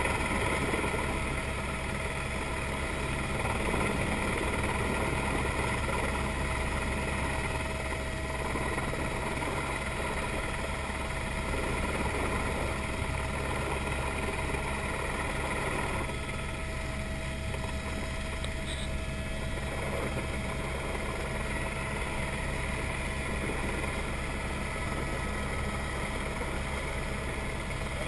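Helicopter in flight heard from inside the cabin: the engine and rotor run as a steady drone, several fixed tones over a constant rushing hiss.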